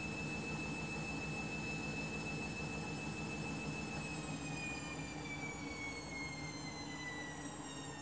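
Candy front-loading washing machine spinning, its drum motor whining steadily, then the whine falls in pitch from about halfway through as the drum slows down from the spin.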